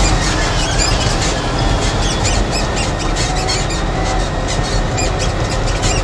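Concrete mixer truck's cab noise while driving: a steady diesel rumble and road noise with many small rattles and clicks from the cab, and a faint whine that slides in pitch.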